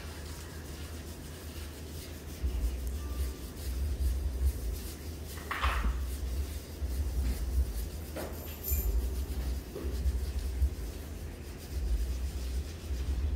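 Hands rubbing and kneading a foot and calf in a pedicure massage, heard as uneven low rubbing noise close to the microphone, with a short swish about five and a half seconds in.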